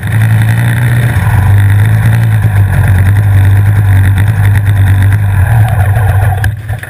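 Superkart's two-stroke engine running steadily at a low, even pitch while stationary, then cut off suddenly near the end.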